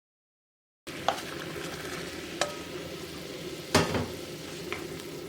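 Kitchen cooking sounds: a steady sizzling hiss that starts abruptly, with four sharp clinks of a utensil, the loudest about three seconds in.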